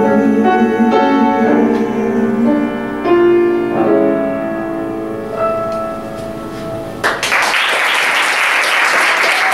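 Piano accompaniment playing the closing bars of the song as a slow run of sustained notes and chords, without singing. About seven seconds in, audience applause breaks out suddenly and carries on.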